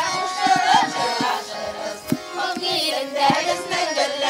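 A group of voices singing a song to accordion accompaniment, the melody wavering and held, with short low beats underneath.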